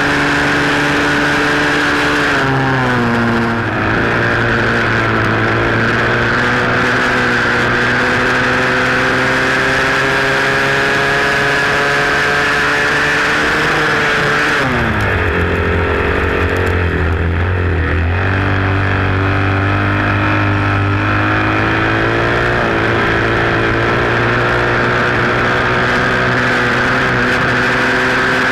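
Flat-track racing motorcycle engine at race speed, heard from a camera mounted on the bike. Its pitch climbs slowly along the straights and drops sharply as the rider backs off into a turn, about three seconds in and again around halfway, before climbing again.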